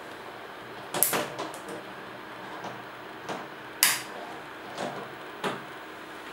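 A padlock being handled and snapped shut on the steel hasp of a plastic cash box: a series of sharp metallic clicks and rattles, loudest about a second in and again just before four seconds in, over a steady faint hiss.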